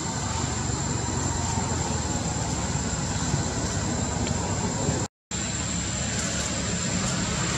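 Steady low rumbling background noise with a thin, constant high whine over it, cutting out to silence for a moment about five seconds in.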